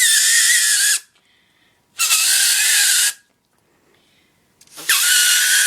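Homemade folded-paper whistle, a strip of loose-leaf paper with two triangles cut in its fold, blown by mouth. It gives three shrill, hissy squeals of about a second each, with a high tone that wavers slightly.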